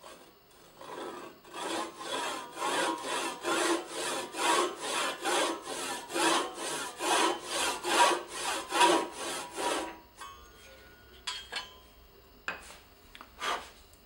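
Fine-toothed hand saw cutting a kerf into a small hardwood strip, in steady back-and-forth strokes, about two a second. It stops about ten seconds in, and a few light taps and brushing sounds follow.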